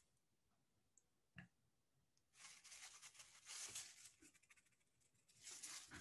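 Near silence with faint scratching and rustling of a water brush and hand against watercolor paper, in two stretches of a second or two, after a soft tap about a second and a half in.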